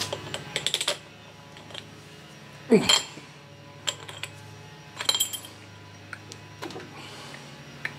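Metal tool clinks and quick runs of clicks from a socket wrench as spark plugs are fitted into the outboard's cylinder head. There are clusters of clicks near the start and about five seconds in, and a louder short scrape about three seconds in.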